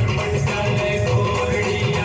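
Loud dance music with a steady beat and a melody.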